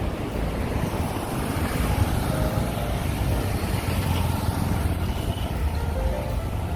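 Steady low rumble of road traffic, with no single standout event.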